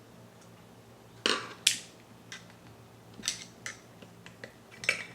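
Small metal parts of a Mazzer Mini coffee grinder clinking and knocking as they are handled: the burr-holding bolts and burr being taken out. Two sharp knocks about a second in are followed by lighter scattered clicks, with another sharp clink near the end.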